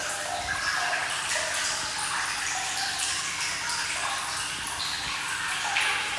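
Steady rush of running water in a hot spring bath, with no breaks.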